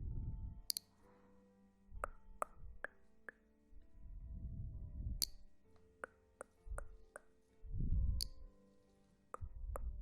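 ASMR trigger sounds close on the microphone: muffled low rubbing comes in several waves, with sharp plopping taps and clicks between them, over a faint, steady, airy music bed.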